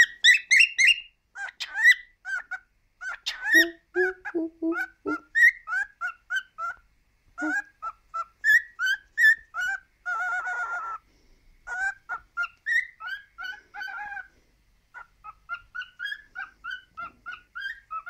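Male cockatiel chattering: a long run of short, quick chirps and warbled whistles, with a buzzy, rasping stretch about ten seconds in.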